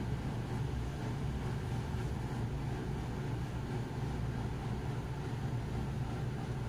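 Steady low background hum of room noise, even throughout with no distinct events.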